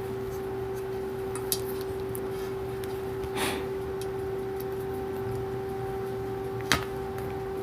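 A steady electrical hum under quiet hand work: a couple of sharp clicks, the loudest near the end, and a short rustle of material about three seconds in.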